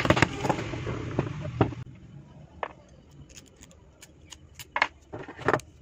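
Small hammer tapping on the stacked steel laminations of a rewound transformer core: a quick run of sharp metallic knocks that stops about two seconds in. After that come a few separate small clicks as a screw is handled and fitted to the core.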